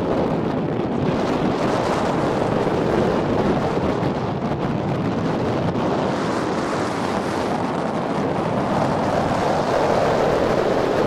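Steady wind rushing over the microphone, an even roar with no breaks.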